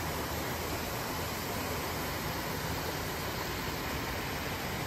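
Steady rushing of water pouring over a spillway, an even noise with no breaks.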